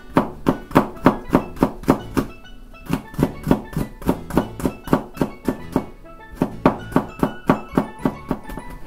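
Kitchen knife chopping garlic on a cutting board: quick knocks about four a second, in three runs with short pauses between, over background music.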